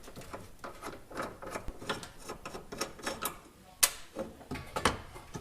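Irregular metallic clicks and knocks from a front suspension strut assembly being wrestled by hand in the wheel arch, with two sharper knocks near the end.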